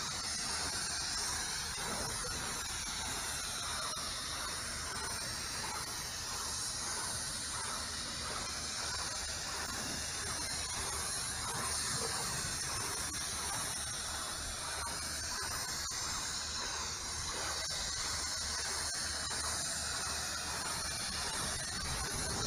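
Pressure washer jet spraying against wooden fence boards, a steady high hiss that strips old paint and growth off the wood.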